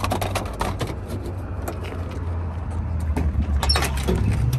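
School bus engine running with a low drone that rises in pitch near the end as the bus accelerates. Scattered light clicks and knocks sound over it.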